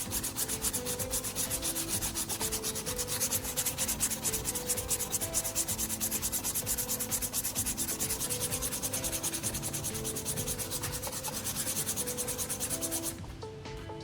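Sandpaper rubbed by hand in quick, even back-and-forth strokes over a hardened foam-paste patch on plastic, smoothing the repair; the sanding stops near the end.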